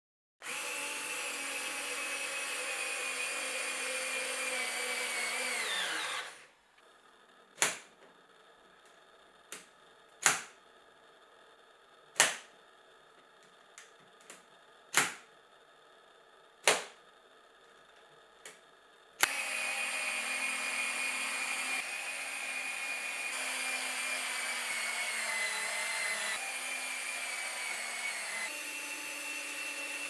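Drel CON-EAS-1301 3.6 V cordless screwdriver running as it drives a long screw into pine, its whine dropping in pitch in the last second as the screw goes in. Then follow about seven sharp clicks as the revolver-style bit magazine is handled, and then the motor runs again for some ten seconds, its pitch sagging slowly.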